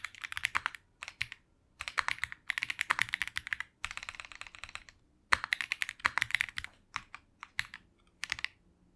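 Typing on an Owlab Mr. Suit TKL mechanical keyboard with lubed Fantasy Virus tactile switches, FR4 plate and PBT Cherry-profile keycaps: rapid runs of keystrokes in bursts with short pauses between them, thinning to a few single strokes near the end.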